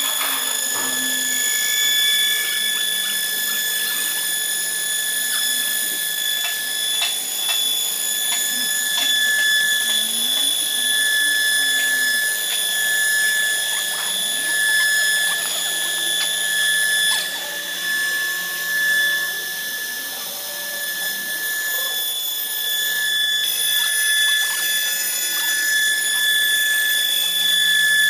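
Three-spindle CNC wood lathe cutting three rotating wooden pool-cue blanks at once: the air-cooled cutting spindles give a steady high whine over the rasp of the knives in the wood, with scattered small ticks.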